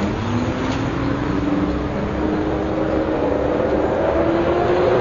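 MCW Metrobus with a Gardner diesel engine under way. The differential's whine rises slowly and steadily in pitch as the bus gathers speed, over the low, busy running of the engine.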